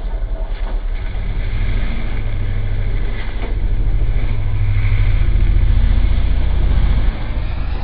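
Polaris RZR side-by-side's engine working hard as the machine climbs a steep dirt hill, growing louder as it comes up toward the listener, with a brief drop about seven seconds in.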